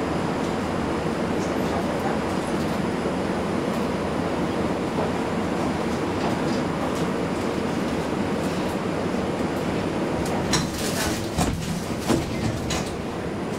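Steady hum and rumble inside an A32 light-rail tram as it stands with its onboard equipment running. From about ten seconds in, a run of sharp clicks and knocks.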